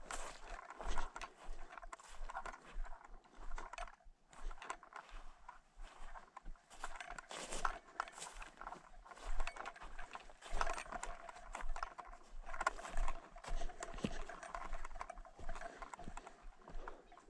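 Footsteps of a person walking on a dry grassy lakeshore path, with grass and low shrubs rustling against legs and clothing in an irregular stride.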